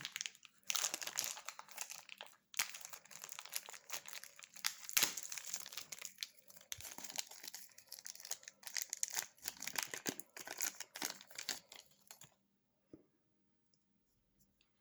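Thin plastic bag crinkling and rustling as a coin in its capsule is pulled out of it, with many quick crackles, stopping a couple of seconds before the end.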